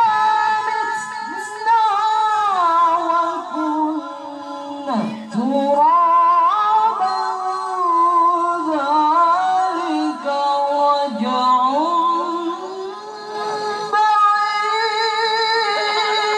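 A qari's Qur'an recitation in melodic tilawah style, sung by a man into a microphone: long held phrases in a high voice, ornamented with wavering turns and slides between notes.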